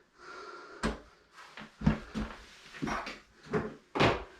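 A run of irregular knocks and clunks from handling tools and wire at a wall, about six in four seconds, the loudest near the end.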